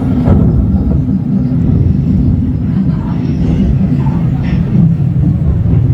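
Steady low rumbling sound effect that accompanies the animatronic gorilla coming to life, played loud through the restaurant's speakers.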